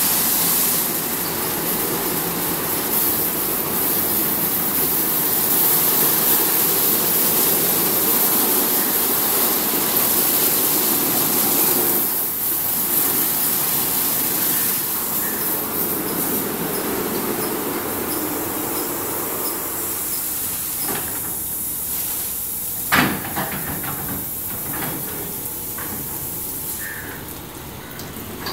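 Automatic rollover car wash gantry running over a car, its rotating brushes and water spray making a steady wet hiss. The hiss eases off about two-thirds of the way through, and a single sharp knock comes a few seconds later.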